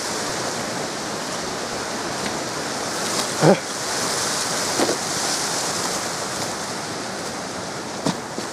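A steady rushing hiss of outdoor noise, with a few sharp knocks of boots on rock: a loud one about three and a half seconds in, another near five seconds and one near the end.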